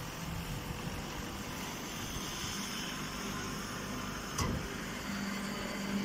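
Hydraulic hay baler press and its feed conveyor running with a steady mechanical hum. There is a single short knock about four and a half seconds in, and the low hum grows louder about five seconds in.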